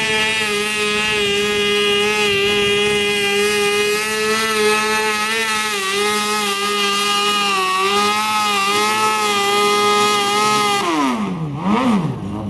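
Modified Toro garden tractor's engine running at high, steady revs while pulling a weight-transfer sled across dirt. About eleven seconds in the revs fall sharply, pick up briefly and fall again as the pull ends.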